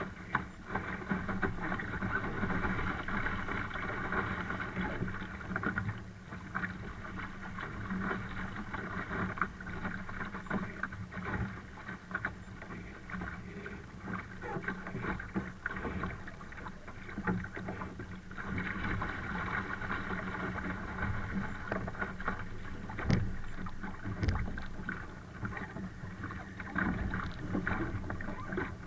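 Steady rush of wind and water around a Laser sailing dinghy under way in strong wind, with irregular knocks and slaps from the hull and rig.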